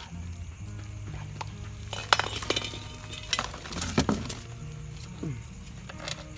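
Sharp clinks of hard objects: a cluster about two seconds in, single ones a little later, and two more near the end, over steady background music.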